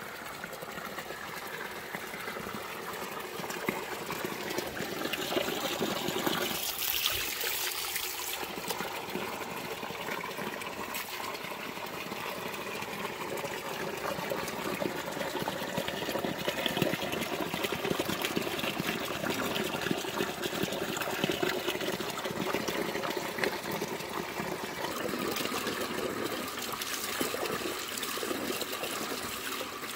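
Running water trickling and splashing steadily.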